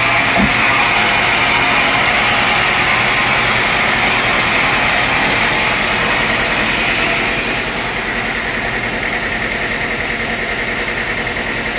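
Sawmill saw running steadily with a loud, even whine. About seven and a half seconds in it drops a little in level and pitch and runs on.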